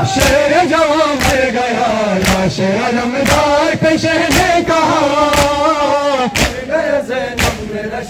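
A crowd of men chanting a Shia nauha (lament) in unison, marked by a sharp chest-beating (matam) slap about once a second.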